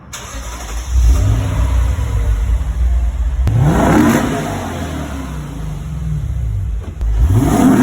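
Lexus IS 500's 5.0-litre V8 running with a low rumble, then revving up sharply about three and a half seconds in and again near the end.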